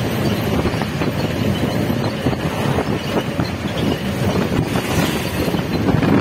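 Wind noise on the microphone over the road noise of a moving vehicle.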